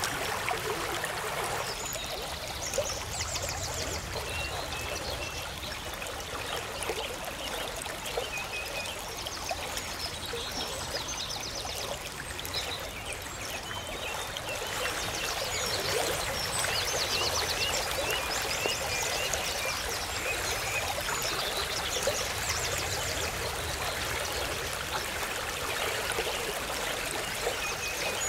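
Steady rush of flowing river water, a little louder from about halfway, with scattered high chirps and rapid trills over it.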